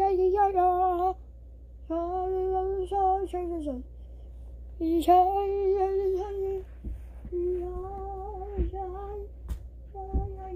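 A child singing short phrases of long, held notes with no clear words, stopping briefly between phrases. A few light knocks come in the second half.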